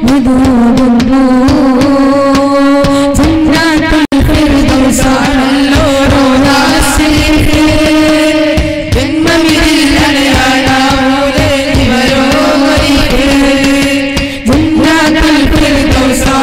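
Boys' voices singing a Malayalam Islamic devotional group song (sangha ganam) together through microphones and a PA, with a rhythmic percussion beat under the singing. The sound cuts out for an instant about four seconds in.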